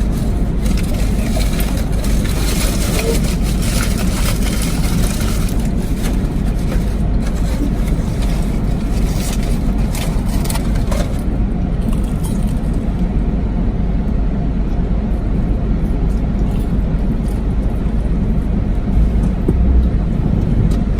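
Road and engine noise inside a moving car: a steady low rumble with some hiss above it.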